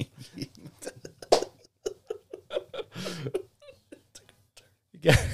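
Men laughing quietly in short, breathy, broken bursts, stifled laughter after a crude joke.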